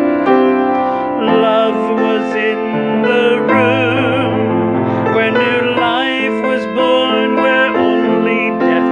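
Piano chords accompanying a man singing a slow religious ballad, holding long notes with a noticeable vibrato.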